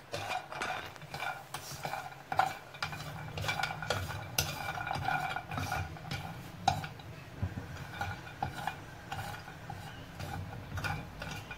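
Hazelnuts being roasted in a frying pan on the stovetop, stirred and pushed around with a wooden spatula: an irregular patter of small clicks and rattles as the nuts and spatula knock against the pan.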